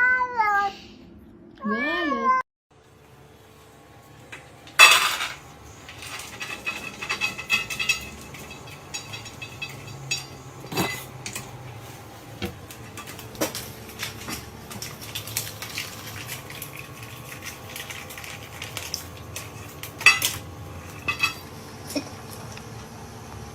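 A cat meows twice, two short rising-and-falling calls. Then, after a cut, a long stretch of kitchen clatter from dishes and cutlery: a loud clank about five seconds in, then scattered clinks and taps.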